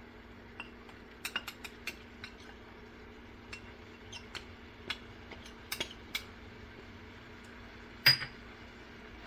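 Spoon stirring red chili powder into a pan of cooking vegetables: scattered light clicks and scrapes against the pan, with one louder ringing clink about eight seconds in.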